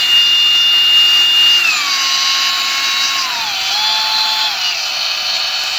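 Hikoki G10VES9Z brushless angle grinder running with a steady high whine that steps down in pitch three times, about a third of the way in, midway and near the end, as its variable speed setting is lowered.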